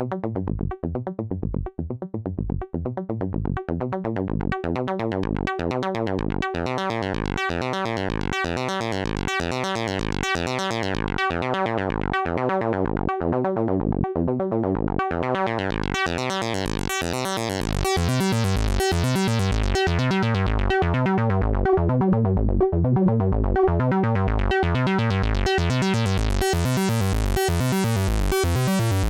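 Eurorack through-zero VCO (Weston Precision Audio TZO), run through a Humpback filter, playing a fast sequenced pattern of short pitched notes. The sound brightens and darkens in sweeps as the filter opens and closes, about a third of the way in and again in the second half. It gets a little louder a little over halfway through.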